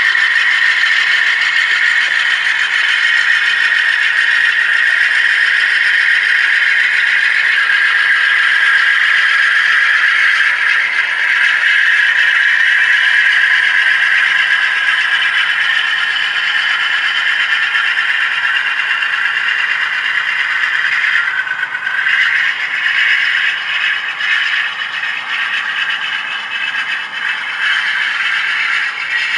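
HO-scale model freight train rolling past: a steady rattle and scrape of the small metal wheels of a long string of ore hoppers on the track, becoming slightly uneven about three quarters of the way in.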